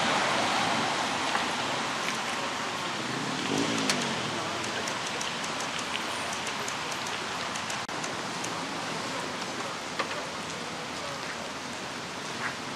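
Steady outdoor background hiss with a few faint clicks. No engine is running.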